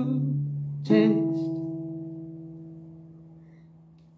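Cort acoustic guitar: a chord is struck about a second in, with a single sung word, then left to ring and slowly fade away.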